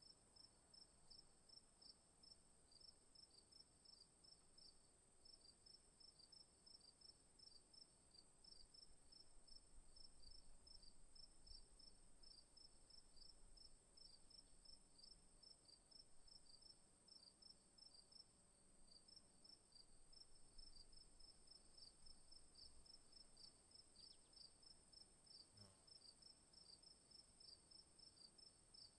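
Crickets chirping faintly: a steady high trill under a rapid chirp that repeats about three times a second, with a single faint tick near the end.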